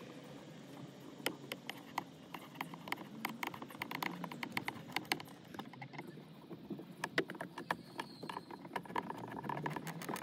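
Screwdriver turning a screw into the plastic instrument-cluster hood of a Toyota Land Cruiser dashboard: a run of quick, irregular clicks and ticks in two spells with a short lull between.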